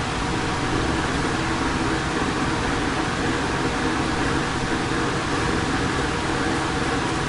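Steady background noise, a continuous hiss with a low hum under it, unchanging throughout.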